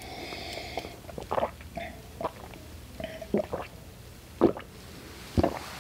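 Water being drunk from a glass: a soft sip at first, then a string of short gulping swallows.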